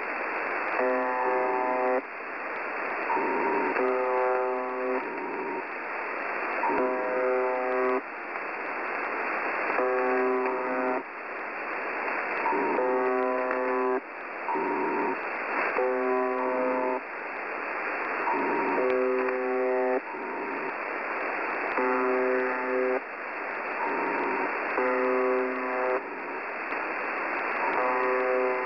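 UVB-76 ('The Buzzer') shortwave station received on a radio: a harsh pitched buzz about a second long, repeating roughly every two seconds over radio static.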